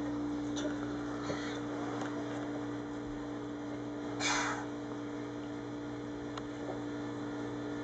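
Steady low electrical hum, with a few faint taps and one short breathy noise about four seconds in.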